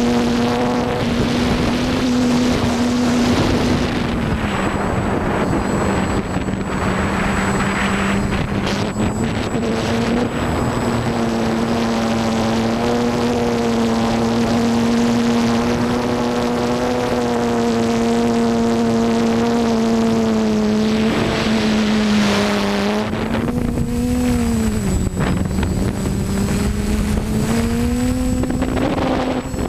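Camera drone's motors and propellers humming steadily, the pitch dropping about four seconds in and dipping and rising again near the end as the drone changes speed, with wind noise on the microphone.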